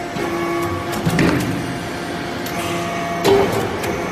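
Metal chip briquetting press (baler) running: a steady machine hum with a clank about a second in and a louder knock just after three seconds.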